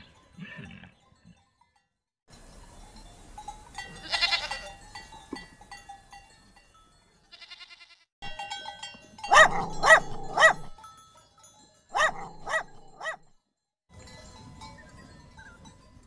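Goats bleating: one wavering bleat about four seconds in, then a run of three loud bleats a little past the middle and two more shortly after.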